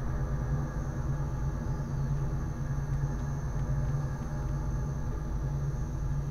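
A steady low droning rumble with a deep hum, holding even throughout.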